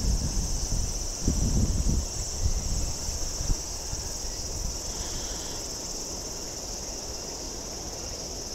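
Steady, high-pitched chorus of insects shrilling over a low rumbling background, with a few louder bumps in the first two seconds.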